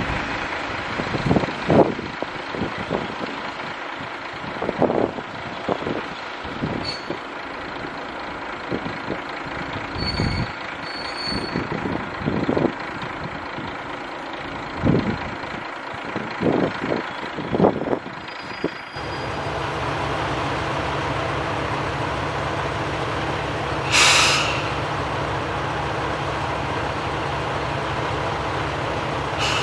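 Diesel railcar of the Kashima Rinkai Railway standing at a platform with its engine idling, a steady low hum, and one short hiss of released brake air about five seconds after the hum begins. Before that, for about the first two-thirds, irregular gusts of wind buffet the microphone while a diesel railcar draws away down the line.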